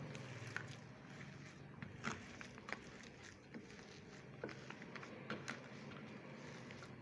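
Hand mixing and kneading a soft shami kabab mixture of shredded chicken, ground spices and chopped green chillies in a steel tray: faint, irregular squishing with occasional light clicks.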